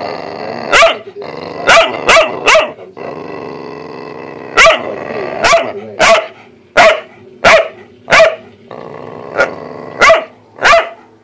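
A dog barking in a string of short, sharp barks, about a dozen, some coming in quick pairs. A steady growl fills the gaps between the barks.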